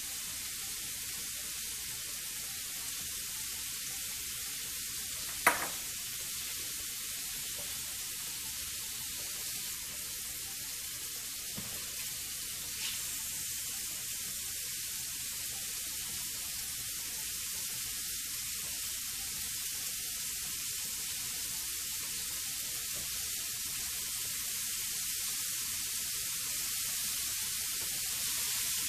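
Shrimp frying in butter and garlic on a hot electric griddle, a steady sizzling hiss. One sharp knock comes about five and a half seconds in.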